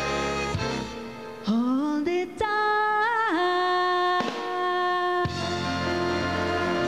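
Female singer fronting a live big band in a slow jazz ballad: a sung phrase sliding up in pitch, then a long held note that wavers at first and then steadies. About five seconds in, the band comes in under her with a sustained chord.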